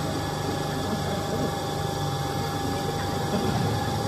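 VMC850 vertical CNC machining center milling a metal part: the spindle runs steadily with a constant high tone over an even low machine hum as the end mill cuts.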